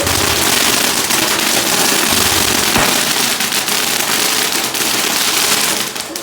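A string of firecrackers going off in a dense, continuous crackle of rapid pops.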